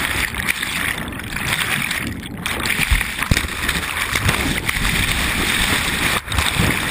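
Loud, steady rushing and splashing of big whitewater rapids heard close up, with a few short low thumps.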